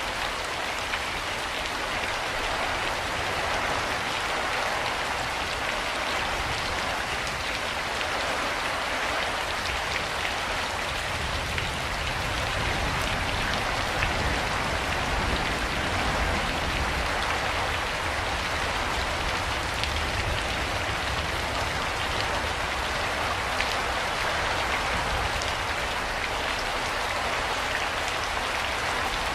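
Steady rain falling, an even hiss with scattered drops ticking on a hard surface and a low rumble underneath.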